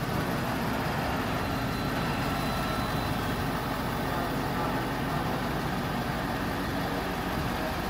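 Ford F-550 Super Duty's diesel engine idling steadily.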